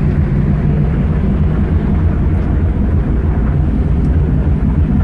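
Loud, steady low rumble on the open deck of a ship under way: wind buffeting the microphone, mixed with the ship's engine and the rush of its wake.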